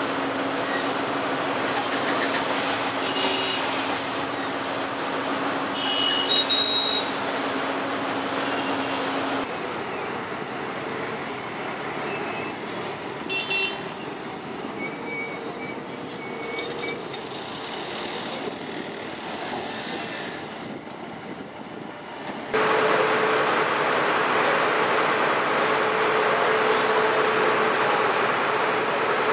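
Engine of a crowded river car ferry running with a steady hum. The sound changes about nine seconds in and turns quieter, with scattered short high tones. About twenty-two seconds in it gets suddenly louder, with a new, higher steady hum.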